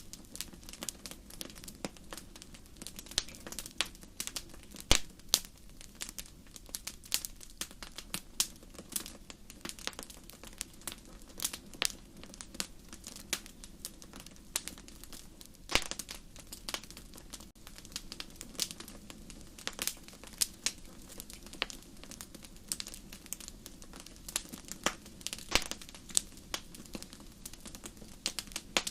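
Wood fire burning, with constant irregular crackling and sharp pops from the burning wood over a steady low hiss.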